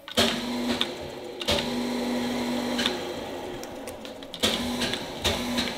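Crankshaft grinding machine's headstock drive switched on and off by push button in short runs, turning the crankshaft in its three-jaw chuck with a steady mechanical hum. It starts and stops about four times. The crankshaft is being turned to check its runout with a dial indicator.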